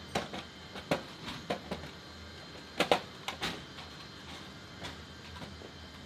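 Metal clanks and clicks as roller conveyor rails on a C-17 cargo floor are pushed and knocked into place by hand, the loudest a double clank about three seconds in.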